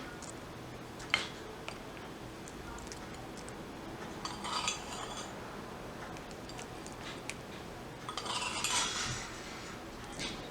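Cutlery knocking and scraping against a dish: a sharp tap about a second in, a short clinking scrape around the middle, and a longer run of scraping and clinking near the end.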